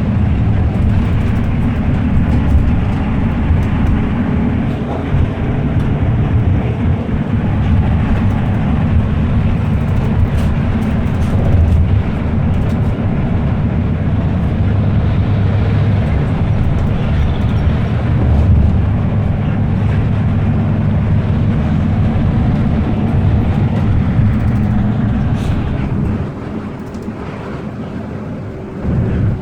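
Steady road and engine rumble heard inside a moving car, with a sleeping passenger snoring. The rumble grows quieter for a few seconds near the end.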